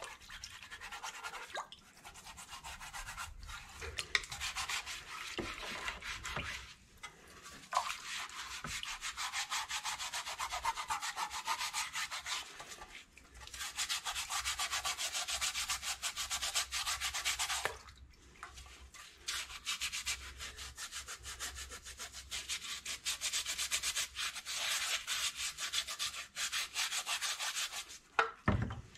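Rapid back-and-forth rubbing on wet steel car body sheet, in several long spells with short pauses. It is rust softened in a citric acid solution being scrubbed off the metal as a muddy sludge.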